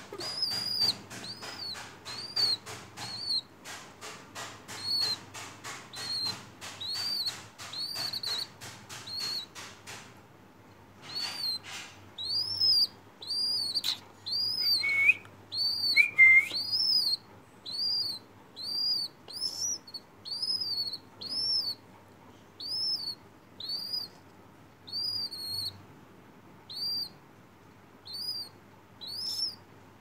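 A nestling bird cheeping steadily: a high chirp that rises and falls, repeated about once a second, with two lower calls about halfway through. Over the first ten seconds or so its beak pecks quickly against a plastic spoon of seeds, making a rapid run of clicks under the chirps.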